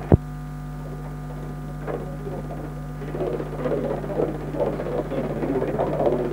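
Steady electrical mains hum, broken by one sharp click just after the start. From about three seconds in, an indistinct crowd murmur rises over the hum.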